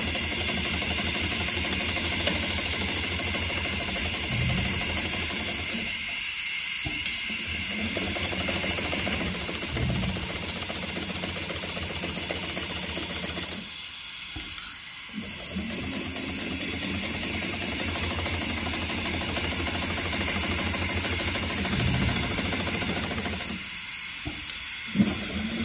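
HighTex 7243CS heavy-duty industrial sewing machine stitching through a thick stack of polyester webbing for a lifting sling, running at a fast even stitch rate over a steady hiss, pausing briefly three times.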